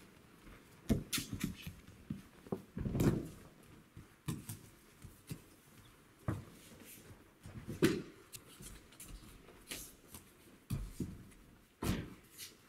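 Aikido practice on padded mats: bodies thudding onto the mat as partners are thrown and fall, with bare feet stepping and gi cloth rustling in between. The thuds come irregularly, several seconds apart, the heaviest about 3 s and 8 s in and another near the end.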